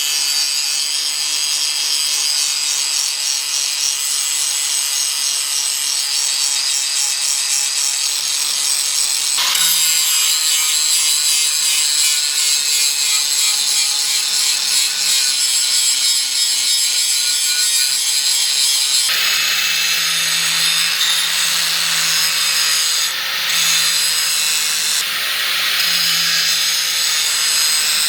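An abrasive power tool working steel: a steady, loud hissing grind over a faint motor hum, changing abruptly twice where the footage is cut.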